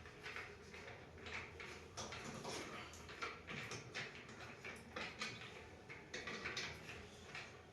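Irregular light clicks and knocks of metal parts and tools being handled as a wheeled washing machine stand is fitted.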